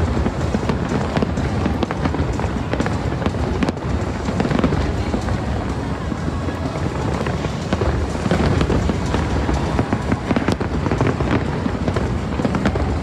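A fireworks display going off continuously: a dense, unbroken barrage of bangs and crackles with no pauses, with music playing alongside.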